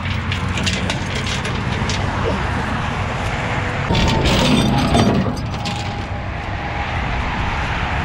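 Tow truck engine idling steadily, with metal chain clinks and rattles from the tie-down chains on the steel deck plate early on. A louder rush swells about four seconds in and fades after about a second.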